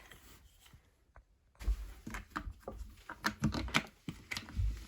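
Irregular clicks, knocks and low thumps of hands unscrewing the water supply connection from the toilet tank, starting after about a second and a half of near silence.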